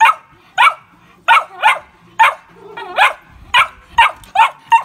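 Puppy barking over and over, about ten short, high, sharp barks at roughly two a second.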